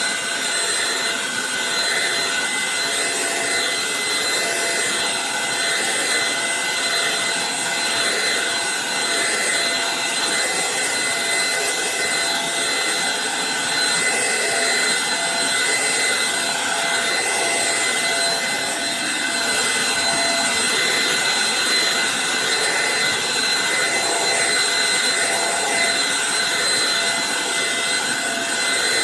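Eureka NES215A Blaze stick vacuum running steadily: a constant rush of air with a high, unchanging motor whine.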